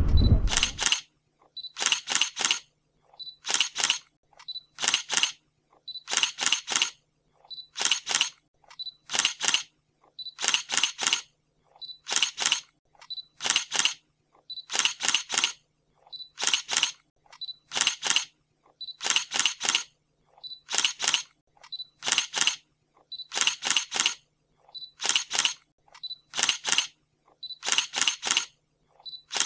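Camera shutter clicks repeating in a steady loop, a quick double or triple click about every second and a half, over a faint low steady hum.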